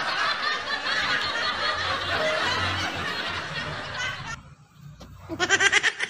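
A crowd of people laughing together for about four seconds, then dying away; after a short lull a single voice is heard briefly near the end.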